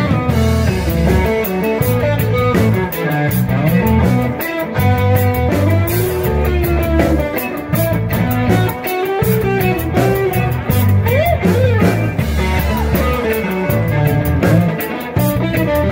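Live rock band playing: drum kit keeping a steady beat under electric bass and electric guitar, with a guitar line that bends in pitch about eleven seconds in.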